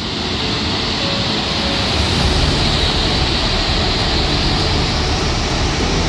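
Steady rushing of a large waterfall in full flow, high after overnight rain, with a deep low rumble under it; it grows a little louder over the first two seconds.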